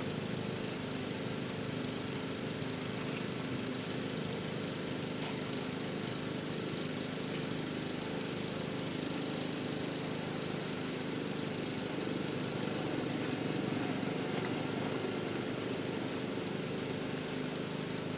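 A small engine running steadily with a constant mechanical drone.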